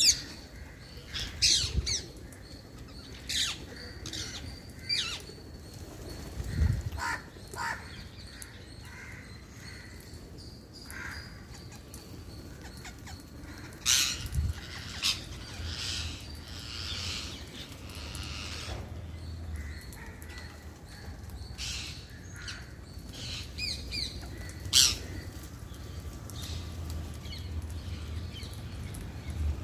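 Wild green parakeets giving short, high calls at irregular intervals, a few of them much louder and closer than the rest, over a steady low background rumble.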